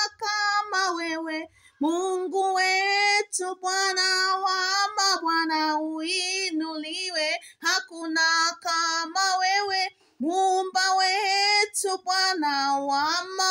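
A woman singing a Swahili worship song alone and unaccompanied, in a high voice with vibrato, in phrases with short breaths between them.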